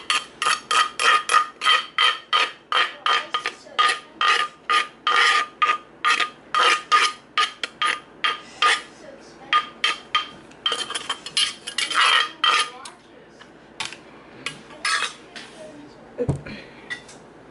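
Metal spoon scraping and knocking against the inside of a papaya-salad mortar, scooping out the salad: quick repeated scrapes, two or three a second, with a faint metallic ring. The strokes thin out after about thirteen seconds, and a single low thud comes near the end.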